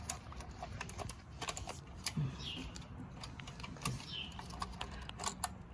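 Irregular light clicks and small metallic rattles from hands handling an electric chainsaw's chain and parts while its tension is checked.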